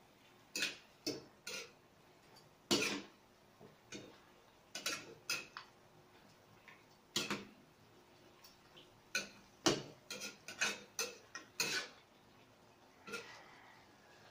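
Metal spatula clinking and scraping against a metal wok while stirring chicken wings, in irregular sharp clinks, sometimes several in quick succession.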